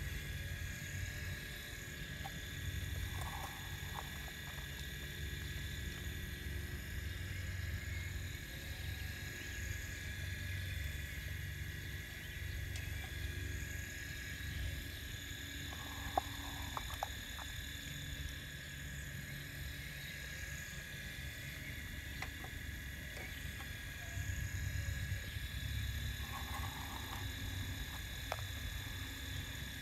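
Radio-controlled scale Cat excavator working its boom and bucket: a steady motor whine over a wavering low hum, with a few short clicks.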